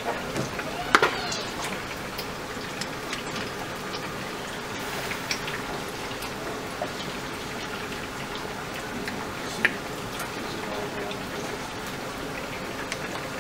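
Pumpkin stew simmering in a pot on low heat, a steady crackle of small pops and spatters. A wooden spoon stirs it, with a sharp knock about a second in and another near ten seconds in.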